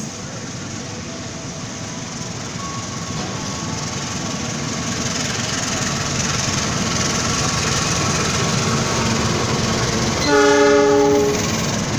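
A diesel-electric locomotive hauling passenger coaches runs past. The engine and wheel noise grows louder as it nears, then holds steady as the coaches roll by. Near the end a train horn sounds once for about a second.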